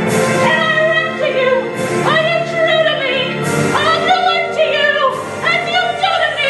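Opera music: a high voice sings held, wavering notes over orchestral accompaniment.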